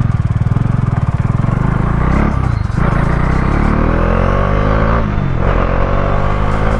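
Bajaj Dominar 400's single-cylinder engine under way, pulling harder and rising in pitch, dipping briefly about five seconds in as it shifts up a gear, then rising again.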